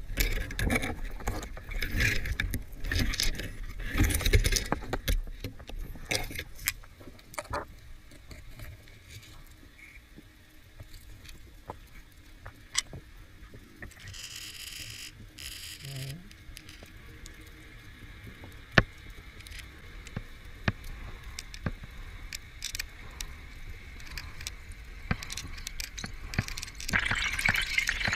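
Underwater sound picked up through a camera housing: muffled knocks, clicks and metallic clinks of spearfishing gear being handled, loudest in the first few seconds, then a rising rush of water near the end as the diver swims up.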